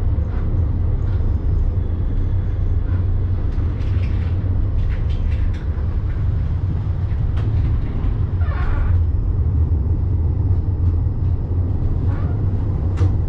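Tram in motion: a steady low rumble with scattered clicks and knocks.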